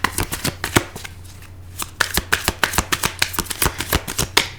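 A deck of tarot cards being shuffled by hand: quick runs of crisp card flicks, with a short pause about a second in before the shuffling picks up again.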